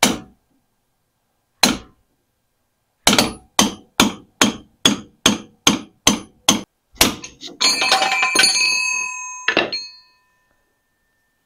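Hammer blows on a steel pickle fork wedged between a steering-shaft coupler and the steering gearbox, driving the rusted, stuck joint apart: two single strikes, then a fast run of about a dozen blows, two to three a second. Near the end comes a stretch of metallic clanging and ringing, then one last strike.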